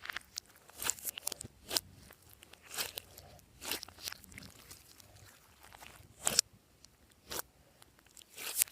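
Glossy slime being squeezed and pressed by hand, making sharp wet clicks and pops at irregular intervals, the loudest pop about six seconds in.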